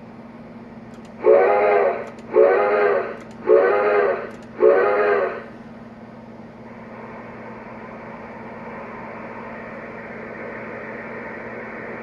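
Recorded steam whistle from the QSI QS-3000 sound system in an O scale Reading G3 Pacific model locomotive: four short blasts, each under a second, with a slight rise and fall in pitch. Afterwards a steady hiss slowly grows over a constant low hum.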